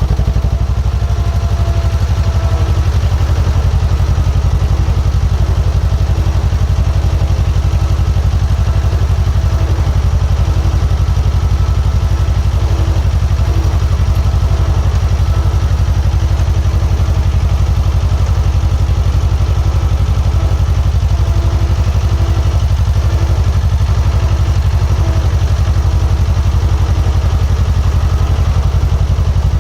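Diesel engine of a piece of construction plant running steadily at a constant speed, with a deep, even low-pitched pulse and a light clatter.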